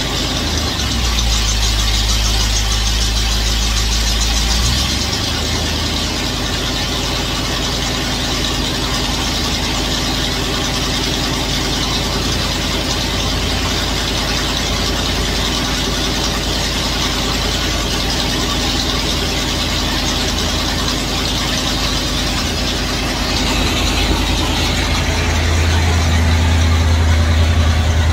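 Car engine running steadily on a newly installed 600 cfm carburetor, growing a little louder and deeper for a few seconds near the start and again near the end. It runs smoothly, running way better than it ever has.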